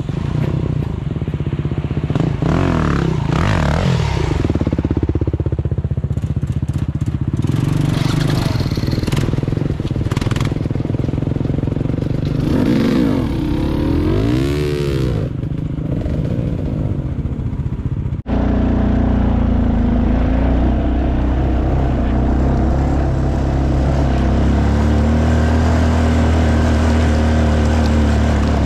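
Dirt bike engine running while riding a trail, its pitch sweeping up and down twice. About eighteen seconds in the sound changes abruptly to a steadier, lower engine drone.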